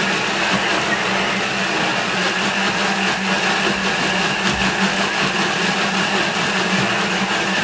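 Thermomix food processor running at speed 8, its blade chopping a brim-full bowl of raw chicken and stock ingredients: a loud, steady motor hum with the churning of the food.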